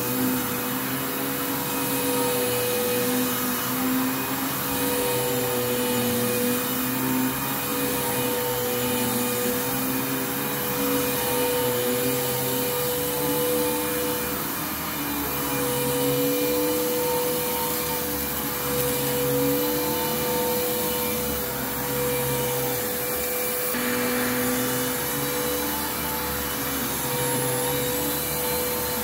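Bissell Lift-Off Revolution Turbo upright vacuum cleaner running steadily as it is pushed back and forth over a rug. Its hum has a steady tone, with a lower tone that wavers slightly up and down in pitch.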